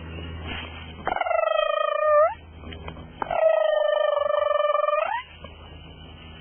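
A person making funny, drawn-out mock-cat noises at cats: two long high calls, the second longer, each held level and then bending upward at the end.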